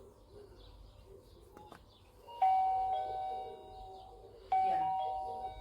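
SHARKPOP video doorbell's chime playing a two-note ding-dong, a higher note falling to a lower one, twice about two seconds apart.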